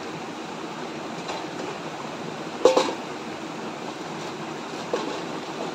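Steady rush of a shallow river flowing over rocks, with a sharp knock about two and a half seconds in and a smaller one near the end.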